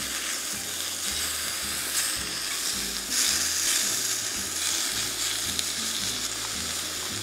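Slices of beef sizzling steadily as they fry in a hot cast-iron skillet.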